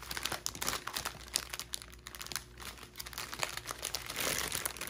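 Clear plastic bag of small diamond painting drill packets crinkling as it is handled and turned over, in irregular crackles.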